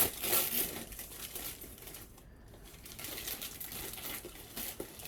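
Wrapping paper crinkling as a present is unwrapped. It is loudest in the first second, breaks off briefly about two seconds in, then goes on as softer rustling.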